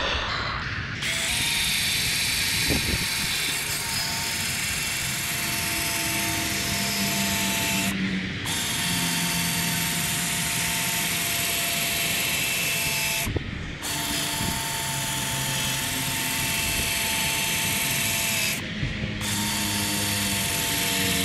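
Power drill spinning a 3000-grit sanding disc against a wetted plastic headlight lens: a steady motor whine with a scrubbing hiss. It starts about a second in and stops briefly three times as the trigger is let off.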